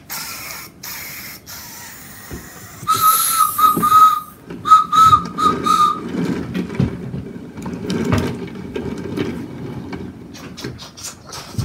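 Homemade toy-train sound effects. First a steam-engine hiss, then a train whistle whistled by mouth as a wavering tone in two runs. After that, wooden toy trains rattle and click as they are pushed along the wooden track.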